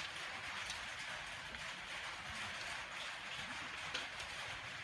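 Steady faint hiss with a few light handling clicks, and a soft tap about four seconds in as the smartphone is laid down on a silicone work mat.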